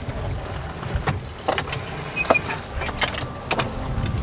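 Wind and sea rushing past a small sailboat under way, a steady low rumble, with irregular sharp clicks and knocks about every half second.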